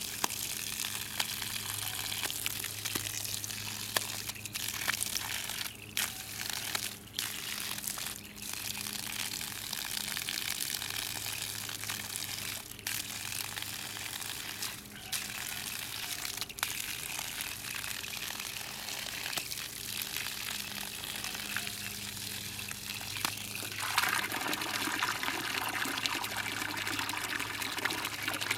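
Garden hose stream splashing steadily. About 24 seconds in, it turns to a louder, brighter splashing as the stream pours into a paddling pool of water.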